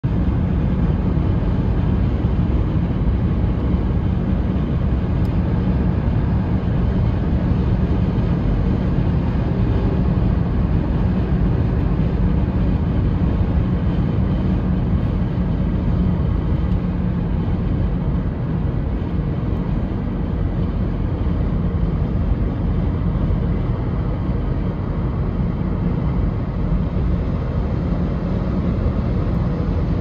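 Steady road noise of a car travelling at highway speed: a low rumble of tyres and engine.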